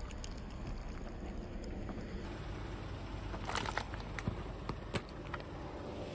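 Car tyres rolling slowly over objects and crushing them, over a steady low rumble of the car, with a cluster of sharp crackles and snaps in the second half.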